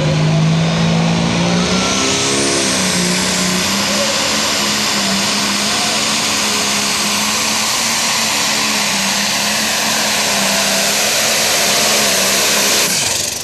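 Diesel engine of a John Deere super-stock pulling tractor going to full throttle about two seconds in, then running flat out with a high whine as it drags the sled. Near the end it drops off sharply and winds down as the pull ends.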